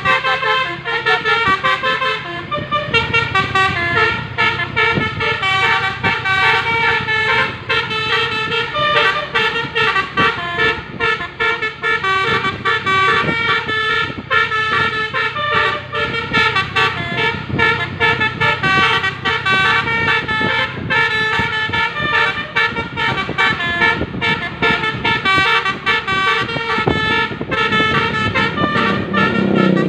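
Basuri telolet bus horn, a multi-tone air horn, playing its melody continuously as a rapid string of changing notes in the reversed 'kebalik' pattern.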